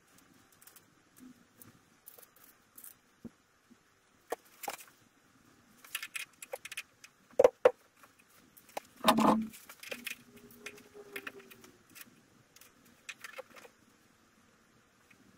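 Hand tools and metal fittings being handled under a car: scattered light clicks and metallic clinks, with one louder dull knock about nine seconds in.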